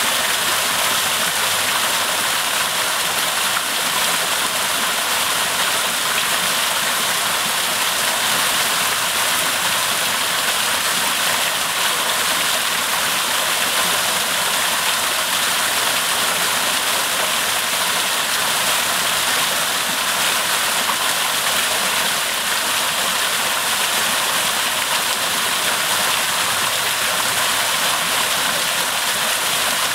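Small landscaped waterfall: thin streams of water falling down a stacked-stone wall and splashing into a shallow pool, a steady, even rush of water.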